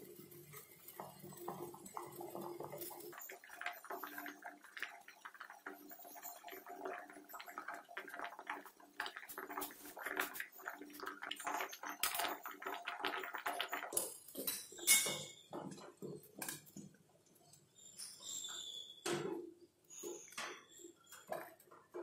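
Steel spoon clinking and scraping against a steel bowl and pan as boiling water is scooped over a poaching egg, with bubbling water underneath. Birds call in the background.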